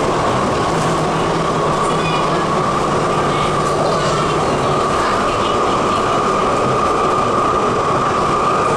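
Interior running noise of an MTR SP1900 electric multiple-unit train under way in a tunnel: a steady rumble with a high whine held throughout.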